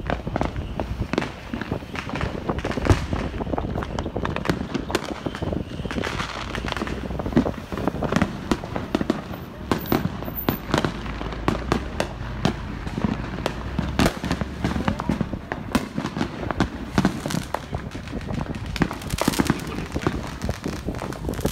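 Many fireworks and firecrackers going off at once, a dense, unbroken barrage of overlapping bangs and crackles.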